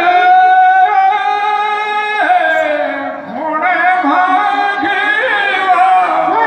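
Men singing Teja gayan, Rajasthani folk ballad singing in praise of Tejaji, into microphones over a PA. The voice holds long notes and glides between them, with a short break about three seconds in.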